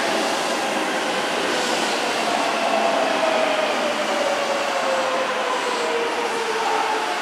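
Keihan 2200 series electric train moving at low speed, with a steady rush of wheels on rail and a whine from its running gear that falls slowly and steadily in pitch.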